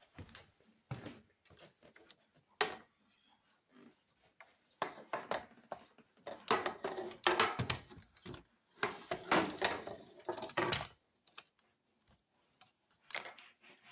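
Scattered knocks and clicks of hard objects being handled, with a dense stretch of clattering from about five to eleven seconds in.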